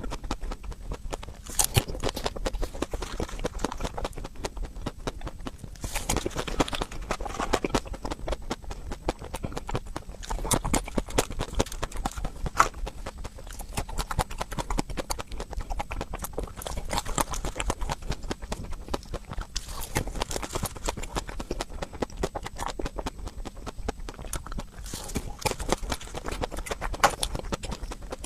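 Close-up crunching and chewing of a crunchy ice cream: a dense, continuous run of crisp cracks and clicks.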